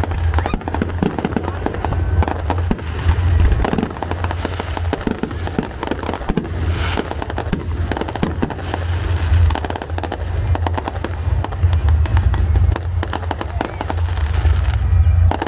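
Aerial fireworks shells bursting in quick succession, a dense barrage of bangs and crackles.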